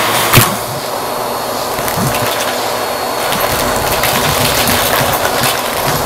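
Bissell vacuum running with its hose nozzle on shag carpet: a coin clatters up the hose about half a second in, then a steady suction rush with a few faint ticks of small pieces rattling through.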